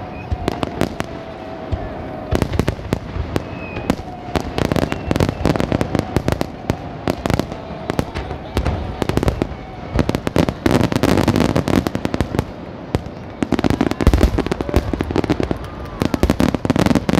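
Fireworks bursting in rapid succession: many sharp bangs and crackles, growing into dense, heavy volleys from about ten seconds in.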